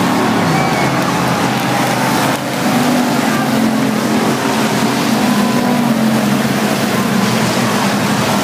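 Dirt-track race cars running under racing speed around the oval, several engine notes overlapping and rising and falling as the cars pass.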